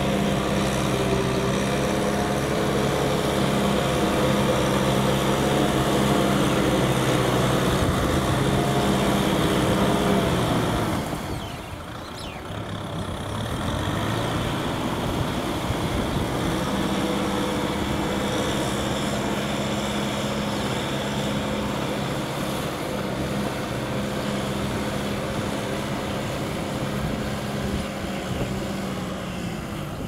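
Kubota M6040SU tractor's diesel engine running steadily under load while tilling a field. It dips briefly about a third of the way through, then comes back.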